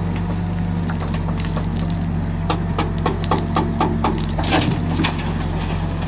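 Case 770 backhoe loader's diesel engine running steadily while the backhoe lifts a full bucket of soil. From about two and a half seconds in, a quick run of clicks and knocks comes as stones and soil spill off the bucket.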